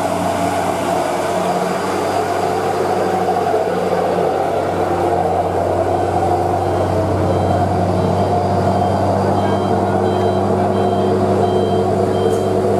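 Heavy truck's diesel engine running steadily. From about halfway through, a reversing alarm beeps in an even series, roughly twice a second.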